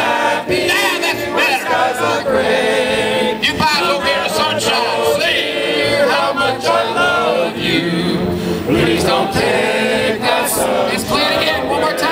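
A crowd's comb chorus: many people humming a tune together through comb-and-paper kazoos, giving a buzzy, voice-like group sound.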